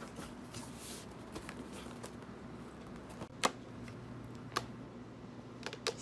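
Quiet rustling as packaging and the plastic parts of a Dyson humidifier are handled. Two sharp clicks come about halfway through, a second apart, and a quick run of small knocks comes near the end.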